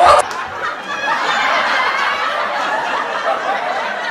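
People laughing.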